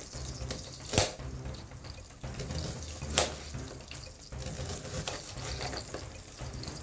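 Kitchen knife slicing an onion on a cutting board: two sharp knocks of the blade reaching the board, about two seconds apart. Under them, eggs sizzle gently in the frying pan as a steady low hiss.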